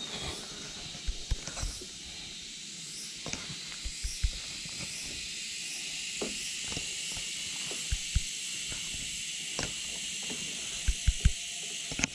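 A steady high hiss, with a few short, soft low thumps scattered through it.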